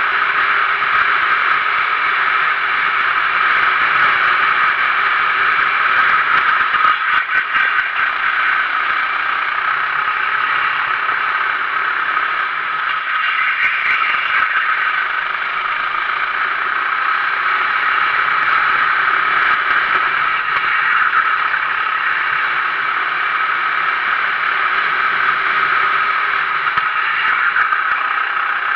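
Onboard sound of a Sodi RT8 rental kart at racing speed: its 390cc single-cylinder four-stroke engine runs steadily under the seat, mixed with chassis rattle, and a short burst of rattling comes about seven seconds in.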